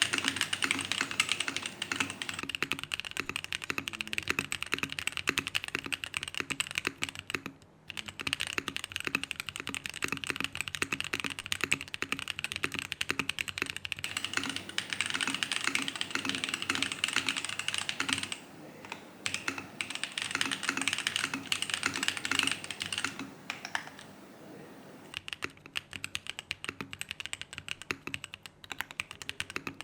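A Mode Eighty mechanical keyboard with lubed Holy Panda tactile switches, an aluminium plate and DCX keycaps being typed on in a fast, steady stream of keystrokes. There is a brief pause about eight seconds in and a couple of shorter lulls past the middle.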